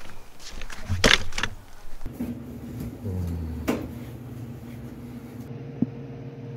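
A folding camping chair being handled: rustling fabric, with a loud click from its frame about a second in. From about two seconds in, a steady low mechanical hum with a few light clicks takes over.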